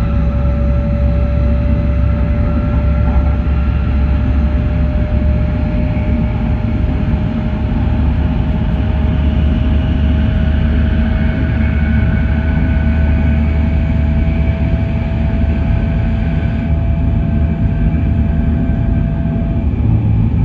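Cabin noise inside an E7 series Shinkansen running at speed: a steady low rumble of wheels on rail, with a faint whine that slowly rises in pitch.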